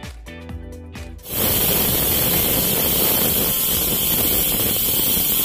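Background music, then about a second in an aluminium pressure cooker's weighted whistle valve starts letting off steam in a loud, steady hiss. This is the cooker's first whistle, the sign that it is up to pressure and the cue to turn off the stove.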